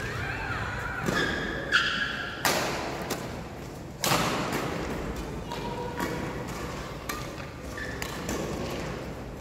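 Badminton rally: racket strings striking a shuttlecock about half a dozen times, each a sharp crack that rings on in a large hall. Short squeaks of shoes on the court come between the first shots.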